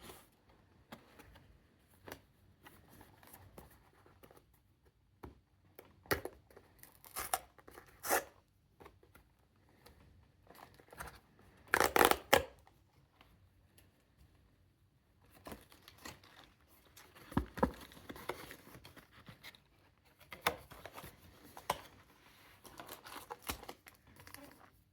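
Packaging of a Pokémon card box being torn open and handled: short scattered rips and rustles of plastic wrap and foil, the loudest about twelve seconds in.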